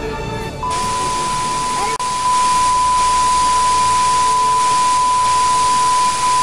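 Analogue TV test signal: a steady high-pitched beep tone over loud static hiss, starting about half a second in as the last of a song cuts off, and stepping louder about two seconds in.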